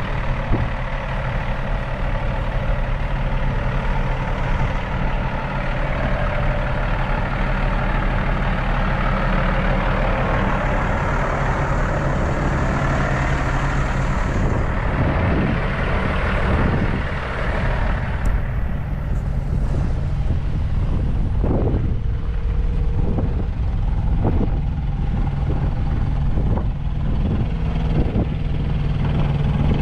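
Heavy truck engines idling, a steady low hum, with a broad rushing noise over it that fades about halfway through and a few scattered knocks later on.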